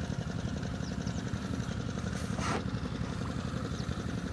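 An engine running steadily, a low even rumble, with a short rushing noise about two seconds in.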